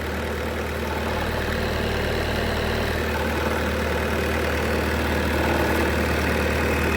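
Bobcat T-590 skid steer's diesel engine idling steadily with the engine compartment open, running clean with no blow-by. Mixed in is a small noise from one part, which the seller says does not affect how the machine drives.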